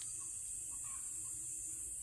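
Steady high-pitched hum of insects over a low rumble.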